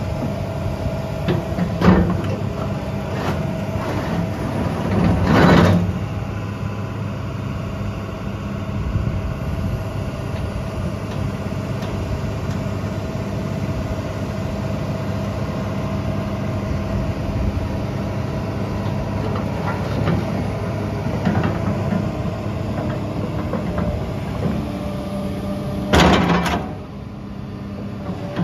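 Sany SY265C excavator's Cummins QSB6.7 diesel engine idling steadily. A few short knocks sound over it, the loudest about twenty-six seconds in.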